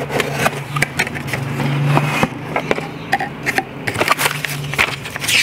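Cardboard box being opened by hand: the lid and the paper inside rustle and tap in a quick run of short clicks, over a steady low hum.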